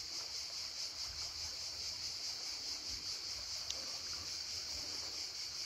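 Mountain river running, under a steady high-pitched insect chorus that pulses faintly.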